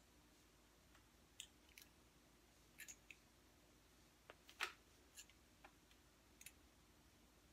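Faint scattered clicks and small metallic snaps of pliers working a piece of stiff wire, about nine in all, with one sharper snap about four and a half seconds in.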